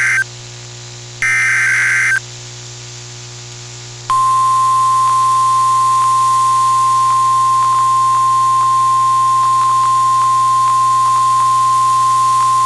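NOAA Weather Radio Emergency Alert System activation: the end of one SAME header data burst and then a last one, each a harsh digital screech about a second long, then after a short pause the steady 1050 Hz warning alarm tone starting about four seconds in and held for roughly nine seconds. This tone announces a warning, here a severe thunderstorm warning.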